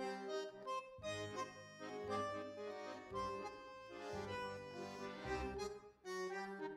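Instrumental background music: a sustained melody over a low bass note that comes about once a second.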